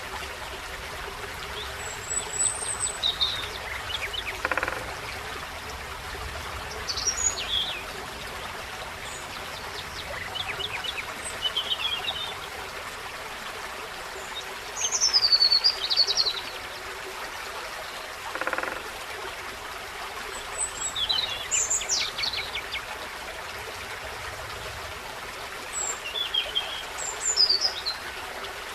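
Forest stream trickling steadily, with small songbirds singing short, high chirping phrases every few seconds.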